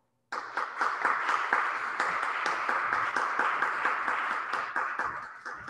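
A small audience applauding, with many hands clapping at once. It starts suddenly and dies away near the end.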